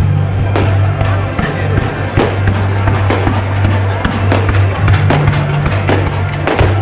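Fireworks display: a rapid string of sharp bangs and crackling bursts, several a second, over loud music with a steady low bass.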